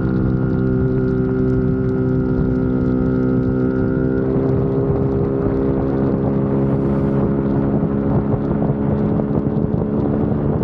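Motorcycle engine running at a steady speed while riding, with wind on the microphone. A thin high whine drops out about four seconds in, and the rushing noise grows rougher from there.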